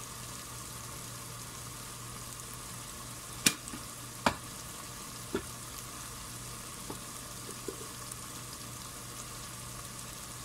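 Onion, tomato and chilli-ginger-garlic paste frying in coconut oil in a pot: a steady sizzle, with a few sharp clicks, the loudest about three and a half seconds in.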